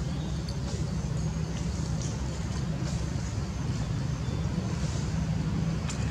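Steady low rumble of background road traffic, with faint high chirps and ticks above it.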